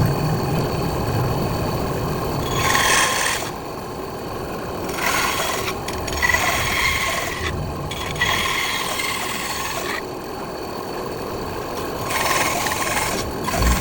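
Bandsaw running steadily, its blade cutting through wood in about five separate stretches, each a second or so long, that rise above the hum of the machine.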